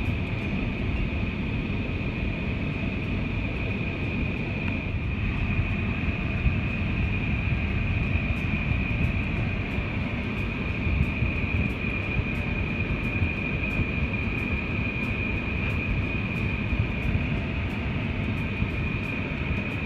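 Steady road rumble of a car driving, with a constant thin high-pitched whine.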